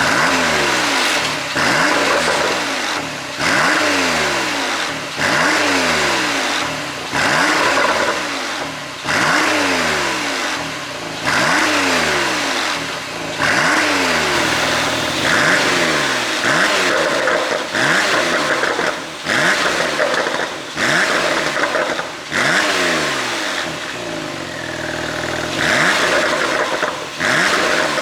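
Porsche 911 991.2 Carrera twin-turbo flat-six revved in quick blips about every two seconds, the revs falling away after each. It pops and crackles on the overrun from an ECU tune set for exhaust pops.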